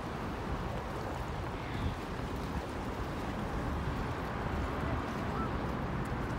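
Steady outdoor wind noise rumbling on the microphone, with no distinct events.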